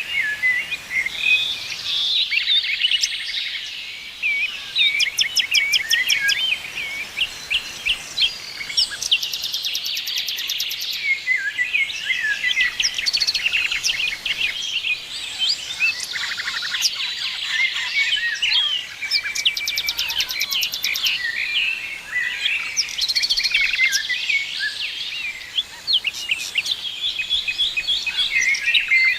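Several songbirds singing and chirping at once, a dense overlapping chorus of short chirps, trills and rapid note series, with a few very high thin trills now and then.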